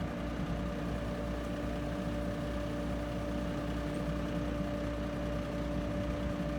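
An engine idling steadily at an unchanging pitch, a construction-machine hum with no revving.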